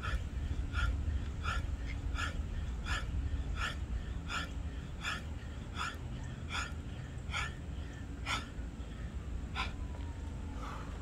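A man's short, sharp exhales in time with fast push-up reps, about three every two seconds, slowing slightly and stopping near the end as the set finishes.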